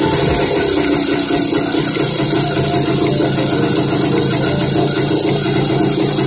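Yezdi motorcycle's single-cylinder two-stroke engine running steadily with the magneto cover off, as the newly fitted CDI ignition is tried.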